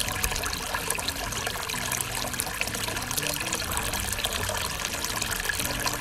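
Water from a pump-fed terracotta-bowl fountain pouring steadily from the spouts and splashing into the bowls below, with many small droplet splashes.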